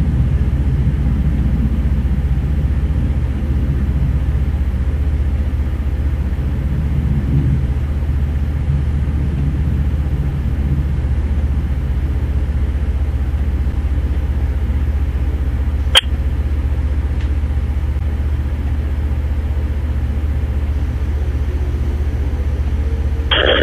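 Steady low mechanical rumble that does not change, with one sharp click about sixteen seconds in.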